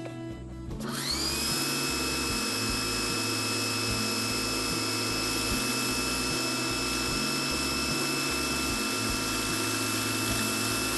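Pressure washer pump starting about a second in with a rising whine, then running steadily under full spray with the spinning patio cleaner attachment cleaning concrete, a constant high whine over hiss.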